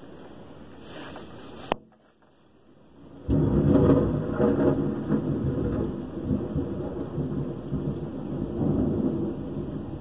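Thunder: a sudden loud clap about three seconds in, then a long rolling rumble that rises and falls. Before it, a steady hiss of rain cuts off with a click, followed by a second of near silence.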